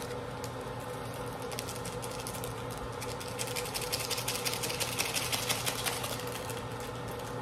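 Small plastic-foil seasoning packet for instant ramen crinkling as it is flicked and torn open, a rapid crackle that grows loudest in the middle, over a steady hum.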